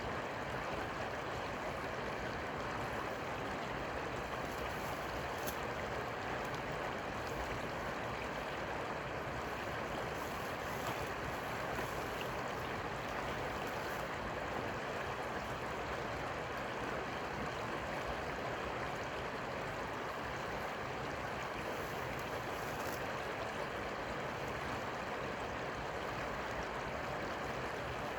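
Steady rush of flowing river water, an even hiss-like wash with no let-up.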